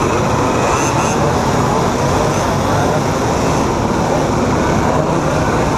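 A large group of mopeds riding together, their small engines running in a dense, steady drone heard from among the pack.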